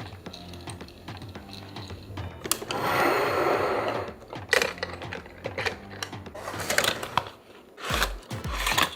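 Toy cars and their packaging being handled, with a run of light clicks and taps and a rustle from about three to four seconds in. Background music with a bass beat comes back near the end.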